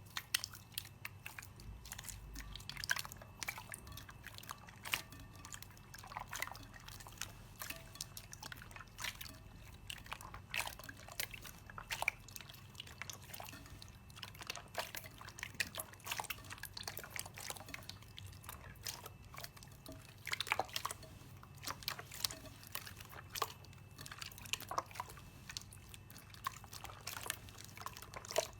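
Slime being handled, making a constant irregular run of small wet clicks and pops.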